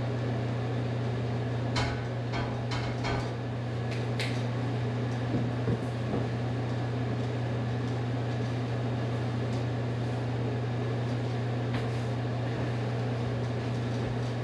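Steady hum of a window air conditioner running. A few sharp clicks and knocks about two to four seconds in, and another near the end.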